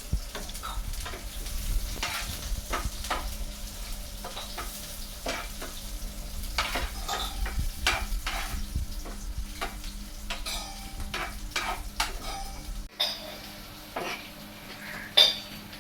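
Irregular clicks, taps and light clatter of objects being handled, over a low rumble that cuts off abruptly near the end. One sharper knock comes just before the end.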